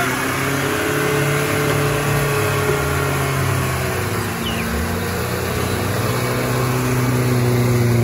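Off-road vehicle engine running steadily at moderate revs, its pitch shifting a little and getting louder near the end.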